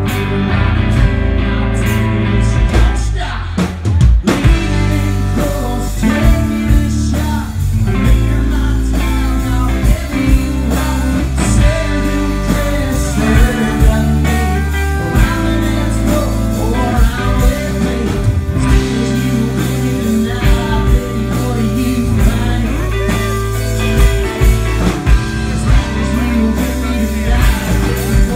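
Live country band playing through a PA: drum kit, electric bass and strummed acoustic guitar, with a man singing lead.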